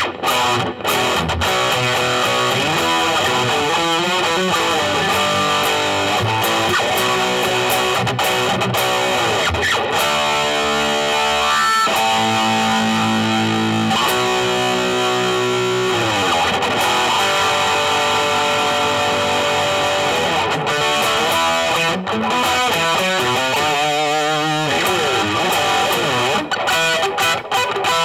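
Gibson Les Paul Standard electric guitar with Burstbucker Pro pickups, played through a Blackstar HT Soloist 60 tube amp: a continuous run of picked lead lines with slides. About ten seconds in there are a few seconds of held notes, and a wavering, vibrato-bent note comes near the end.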